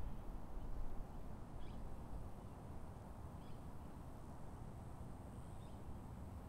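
Quiet outdoor ambience: a steady low rumble with a few faint, short bird chirps, about one every two seconds.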